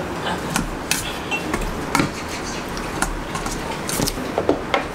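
Metal utensils clinking and knocking against a stainless steel bowl as cold noodles are tossed and mixed. There are a handful of irregular sharp clinks over steady room noise.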